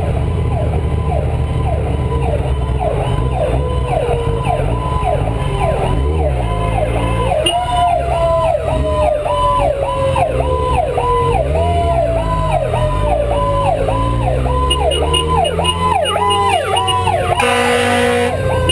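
Fire engine siren yelping in a fast, repeating rise and fall, with a second, slower tone gliding down in pitch several times, over a low rumble. A short, loud blast comes near the end.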